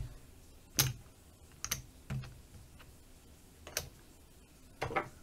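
Casino chips clicking against each other as they are picked up and stacked by hand: about five separate clicks spread over several seconds.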